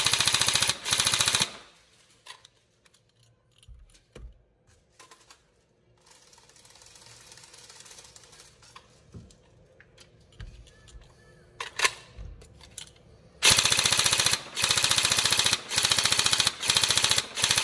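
Tokyo Marui HK416 Devgru next-generation recoil airsoft electric gun firing short full-auto bursts: a fast, even mechanical clatter of the upgraded gearbox cycling with its recoil weight, driven by a high-speed motor on torque gears. The bursts come at the start and again from about 13 s in, with a pause of quiet handling knocks and clicks between.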